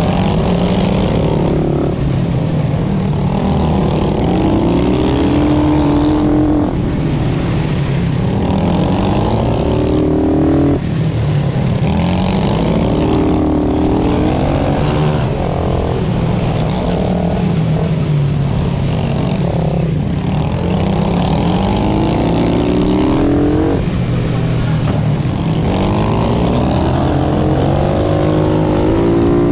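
Pit bike engine on the throttle, heard from on the bike, climbing in pitch and dropping back every few seconds as the rider accelerates and backs off through a run of corners.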